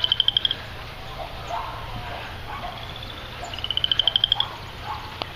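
A frog calling in short, rapid pulsed trills, twice: once at the start and again about three and a half seconds later, over a steady low background rumble.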